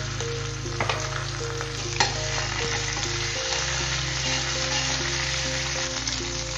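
Hot oil sizzling and spitting in a stainless steel fry pan as ginger garlic paste fries with curry leaves and green chilli, stirred with a spatula. There are two sharp clicks of the utensil against the pan, about one and two seconds in.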